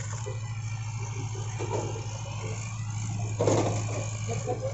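JCB compact tracked excavator's diesel engine running steadily while its bucket pushes through brush, with scattered crackling and a louder crash of breaking brush a little after three seconds in.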